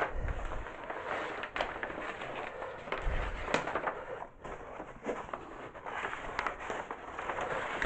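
Large sheets of drawing paper, taped together into a template, rustling and crackling as they are handled and pressed down, with a dull thump about three seconds in. The sound is picked up by an overdriven camera microphone.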